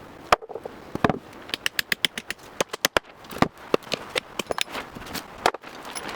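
A rapid, irregular series of sharp knocks and clicks, several a second, like wood being knocked about or struck.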